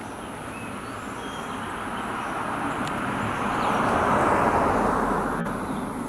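A road vehicle passing by: a steady rushing noise that slowly swells to its loudest about four seconds in, then fades away.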